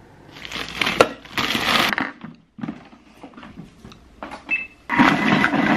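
Countertop blender crushing frozen banana and frozen raspberries for a smoothie, running in several bursts, the loudest near the end.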